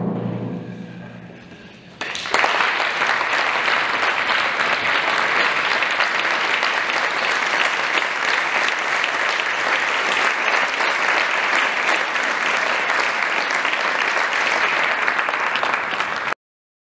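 The final chord of a symphonic wind band fades away in the hall. About two seconds in, the audience breaks into steady applause, which cuts off suddenly near the end.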